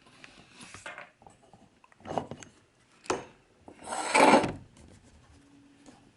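Handling noise as objects are picked up and rubbed against each other: scattered scrapes, a sharp click about three seconds in, and a louder scraping rustle about a second later.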